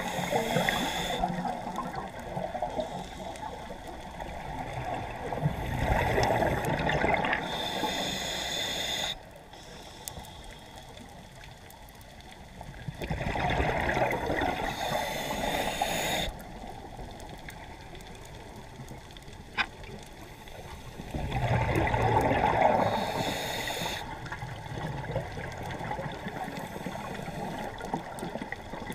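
Scuba diver breathing through a regulator, heard underwater through a camera housing: long bursts of exhaled bubbles every seven or eight seconds, with quieter stretches between breaths.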